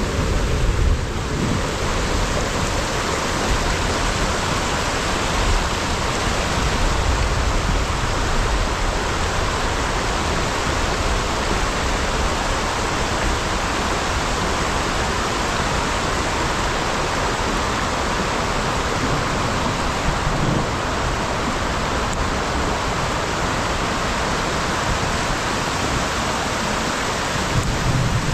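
Heavy rain falling, a loud steady hiss with an uneven low rumble beneath it.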